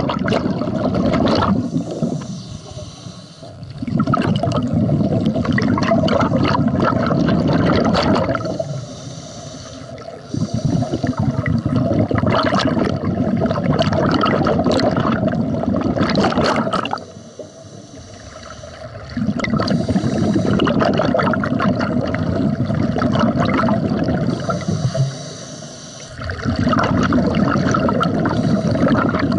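A scuba diver breathing through a regulator underwater: long, loud bubbling exhalations of about five to six seconds, each followed by a quieter gap of about two seconds for the inhalation, four times over.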